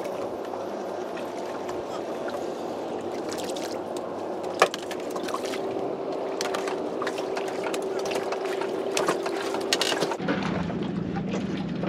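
A fishing reel being wound in on a small drifting boat, bringing up a small black bream, over water and wind noise. A sharp knock comes about four and a half seconds in.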